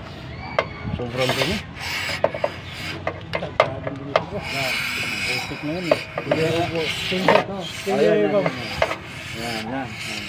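A rag rubbing and scrubbing against a throttle body as it is wiped clean, with short repeated squeaks and sharp clicks from handling the parts and the can.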